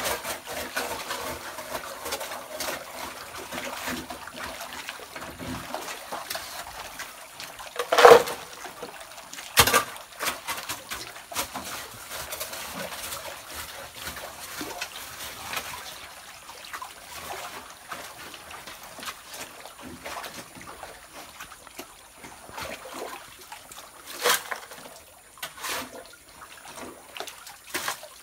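Muddy water trickling and splashing, with a few sharp knocks of a hoe digging into clay and stone; the loudest knock comes about eight seconds in.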